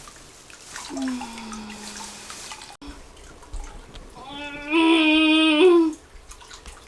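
A woman in transition labor moaning through a contraction. First comes a long low moan that falls in pitch and fades. Then a louder, higher moan is held for about a second and a half near the end.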